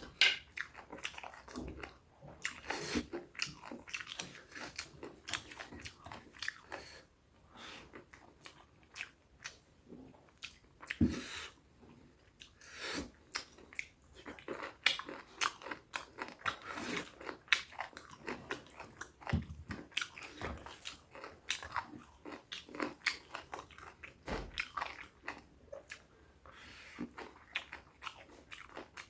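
Close-up eating sounds: a person chewing buffalo meat with small bones, with frequent short crunches, clicks and wet mouth noises.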